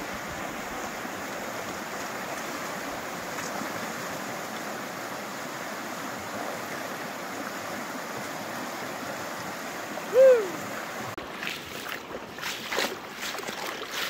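Steady rushing of a stream or flowing water. About ten seconds in comes one short, loud call that falls in pitch, and then irregular splashing from about eleven seconds on, like steps wading through water.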